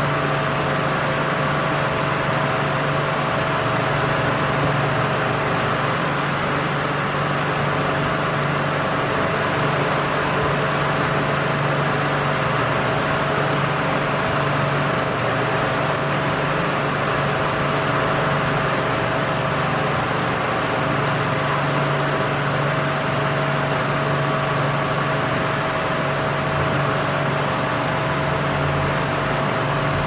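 Ventisilva VENTI50P 50 cm wall fan running at maximum speed: a steady whoosh of moving air with a constant motor hum and a few steady tones under it.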